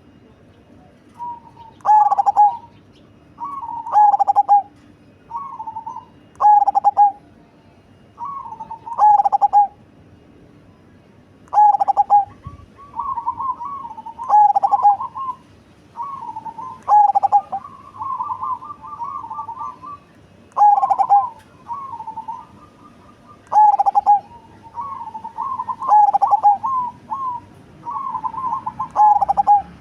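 Zebra dove (perkutut) of the cemani variety singing its cooing song, a big, bassy voice. Short cooing phrases repeat about every two seconds, each ending in a loud held low note.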